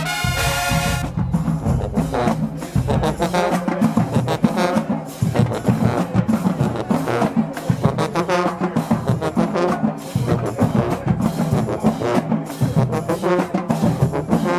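High school marching band playing loud: brass (trombones and trumpets) over drums. A held brass chord breaks off about a second in, and the band plays on over a steady drum beat.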